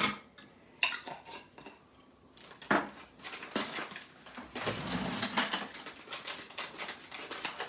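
Kitchen utensils being handled around a stainless steel mixing bowl on a countertop: a few separate sharp clinks and knocks, then a couple of seconds of busier clatter and shuffling.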